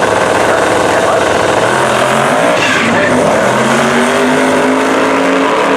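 A car engine at high revs under hard throttle, its pitch bending and then climbing steadily through the second half, over a loud rush of tyre and exhaust noise.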